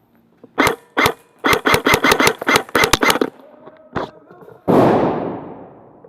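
Airsoft guns firing: two single shots, then a rapid burst of about a dozen shots, then one more shot. Near the end comes a loud burst of noise that fades away over about a second.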